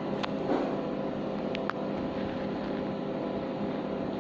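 A steady hum with a few faint, short clicks.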